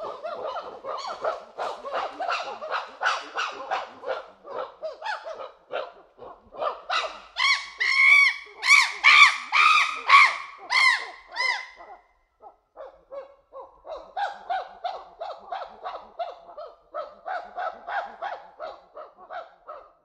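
Chimpanzee calling: a run of rapid, repeated hoots builds into loud, high screams from about seven seconds in. The screams break off around twelve seconds, and after a short pause another run of quieter hoots follows.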